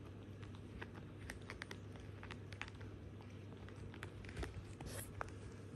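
Asian small-clawed otter pawing and mouthing an empty clear plastic phone case: faint, irregular clicks and scratches of claws and teeth on the plastic.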